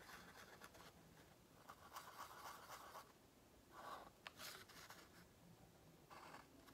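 Faint scratching of a black Sharpie marker drawing on a painted cardboard toilet-paper roll, in a few short strokes.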